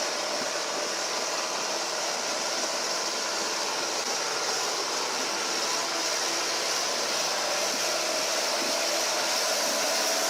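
Steady rushing noise with a faint low hum underneath, holding an even level throughout.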